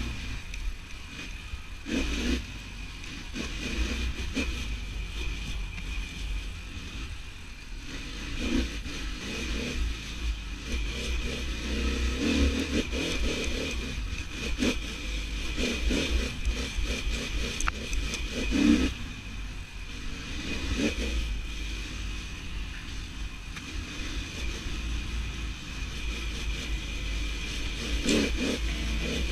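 Dirt bike engine under way, revving up and dropping off again and again as the throttle is worked.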